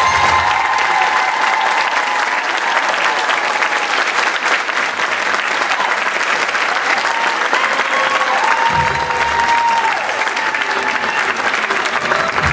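Theatre audience applauding, dense steady clapping with some whooping cheers held over it.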